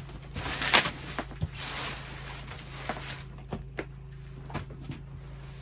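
Cardboard box and packing material rustling and scraping as a package is unpacked, loudest in the first two seconds, then a few scattered light clicks and knocks.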